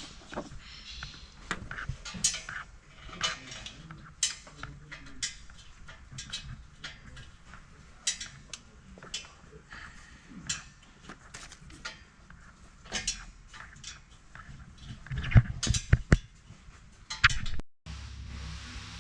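Metal hand tools and bolts clinking and knocking against a steel exhaust header while header bolts are fitted. The clinks come irregularly, with a louder burst of knocks near the end.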